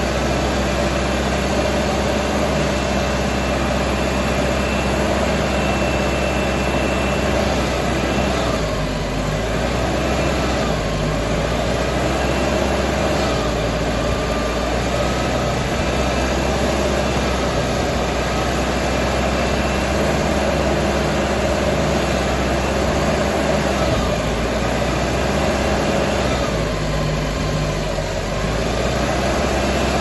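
Backhoe loader's 4102 supercharged four-cylinder diesel engine running steadily while the backhoe arm digs. Its note shifts a few times as the arm works.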